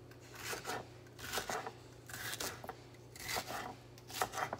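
Kitchen knife slicing a green bell pepper into strips on a wooden cutting board: groups of quick cutting strokes landing on the board about once a second.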